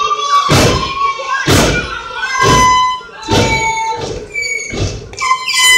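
Repeated heavy thuds on a wrestling ring's mat, roughly one a second, with raised voices between them.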